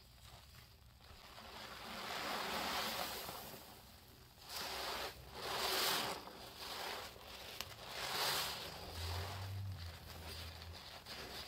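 Sponge squeezed by gloved hands in foamy detergent paste and suds: wet squelching and crackling foam. It comes in several swelling squeezes, the loudest about halfway through.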